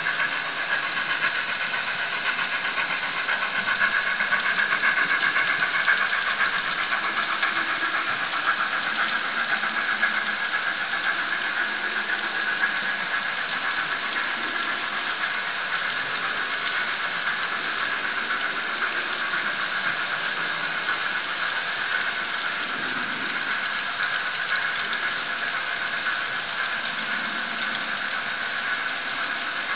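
Model freight train rolling steadily along the track, with a continuous whirring rattle of the wheels and running gear on the rails.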